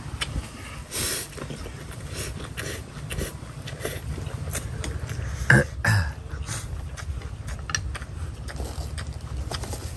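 Close eating sounds: a man slurping and chewing rice noodles, with short clicks of chopsticks in the bowl, and one louder sound from his mouth about five and a half seconds in. A steady low rumble runs underneath.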